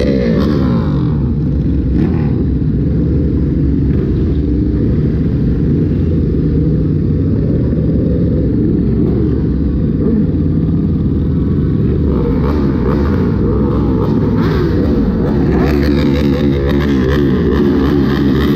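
A dense mass of motorbikes running in the street together, many engine notes rising and falling over one another as riders throttle up and ease off. About two-thirds of the way in, a busier, noisier higher layer joins the steady engine noise.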